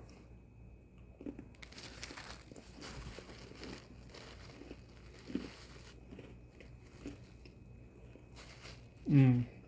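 Crunching and chewing of a chocolate Oreo cookie, with some crinkling, then near the end a short, loud, falling "mm" of approval from the eater.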